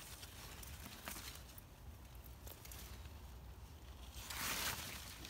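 Grapevine leaves rustling as a hand pushes them aside, with faint scattered clicks; a louder rustle comes about four and a half seconds in.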